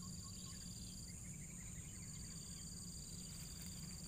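Faint insect chorus: a steady high-pitched buzz with a pulsing trill that drops out for about a second in the middle, over a low rumble.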